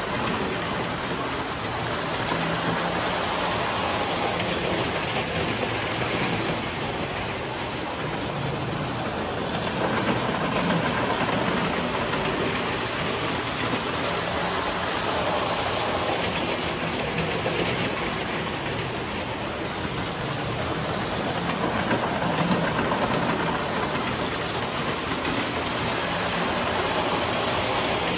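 Tinplate electric toy train running around its layout: a steady motor hum and wheel rattle on the metal track, swelling each time the train passes close.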